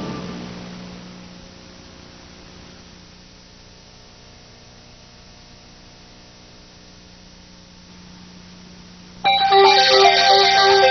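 Music fading out, then a steady low hum for several seconds. About nine seconds in, music starts suddenly with held, ringing tones.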